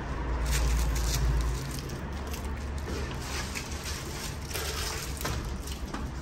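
Scattered metallic clicks, knocks and rattles inside an empty semi-trailer, over a low rumble that drops away about a second and a half in.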